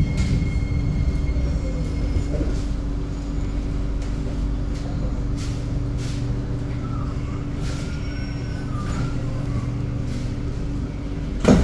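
Inside a C751B metro train in motion: a steady rumble of wheels on the track with a low motor hum and occasional light clicks, and a faint wavering squeal from the wheels in the middle. A sudden loud knock comes right at the end.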